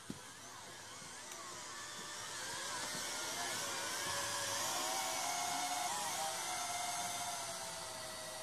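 Apex toy quadcopter's propellers whining in flight, several pitches wavering up and down as the motors change speed. The whine grows louder as the drone comes closer, peaking past the middle and easing a little near the end. A single sharp click right at the start.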